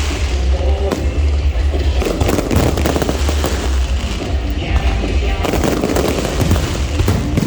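Aerial fireworks going off, with many sharp cracks and bangs close together over a steady low rumble.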